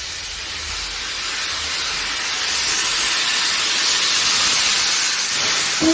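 Steam locomotive letting off steam: a steady hiss that grows gradually louder, with a faint low rumble that fades out over the first two seconds.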